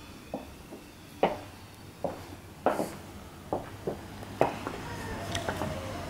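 Footsteps on a tiled floor: about eight sharp clicks at uneven intervals.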